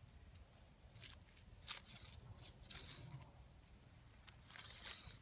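Hand saw cutting through the trunk of a Christmas tree: faint, uneven rasping strokes, becoming quicker and louder near the end.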